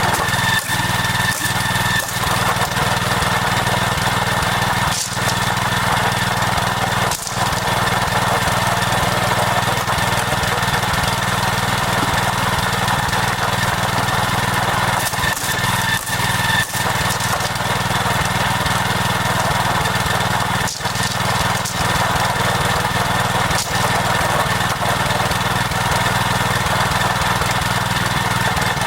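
A small engine running steadily at a constant speed, with a few brief dips in level.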